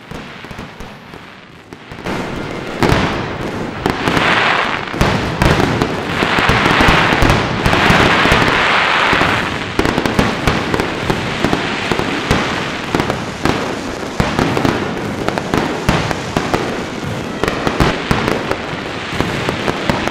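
Aerial fireworks shells bursting: dense, rapid crackling and bangs that start about two seconds in. They grow to a loud peak of crackle for several seconds, then carry on as a steady run of pops and bangs.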